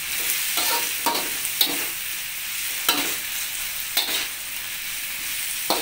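Tomato and red bell pepper sizzling in oil in an aluminium wok, with a metal spatula scraping and clinking against the wok at irregular intervals, roughly once a second, as it is stir-fried.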